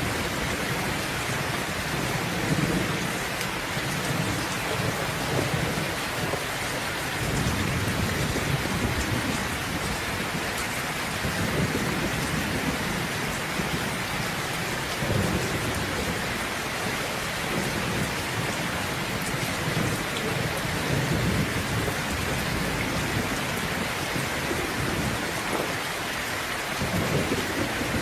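Steady rain falling, with low thunder rumbling again and again as it swells and fades.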